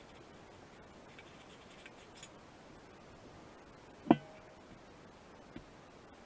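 A single sharp metallic clank with a brief ring about four seconds in, as steel workshop parts are handled; a few faint light taps before it and a softer knock after it.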